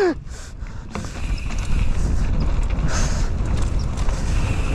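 Mountain bike being ridden over a rough trail: a low rumble of wind on the microphone with irregular knocks and rattles from the bike, getting louder about a second in.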